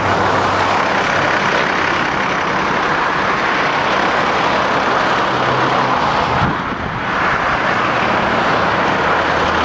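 Tour coach idling close by: a steady, loud running noise with a low hum underneath, dipping briefly about six and a half seconds in.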